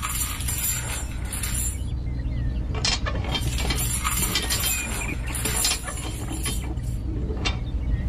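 Small machinery humming steadily under repeated bouts of dense clinking and rattling, like small stones or metal parts knocking together.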